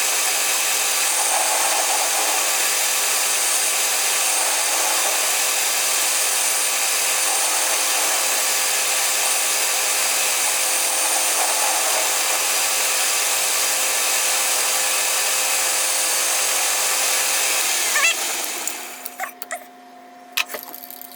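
Power tool steadily cutting down a piece of bar stock: a dense, even cutting noise over a steady hum. It stops about 18 seconds in, leaving a quieter hum and a few clicks and knocks.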